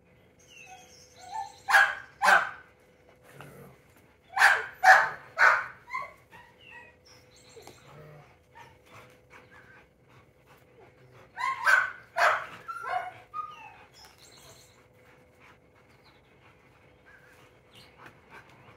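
A dog barking in short groups: two sharp barks near the start, three in a quick row a few seconds later, and two more past the middle, with softer yips and snuffles between.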